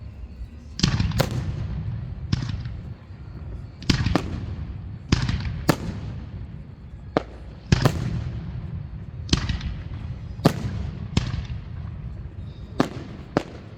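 Aerial fireworks shells bursting overhead: a dozen or more sharp bangs at uneven intervals, about one a second, each trailing off in a low rumble.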